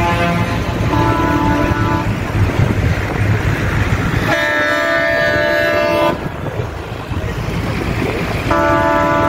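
Tractor horns blaring in long blasts: one about a second in, a louder, higher one about four seconds in that lasts about two seconds, and another starting near the end. Low engine rumble runs underneath.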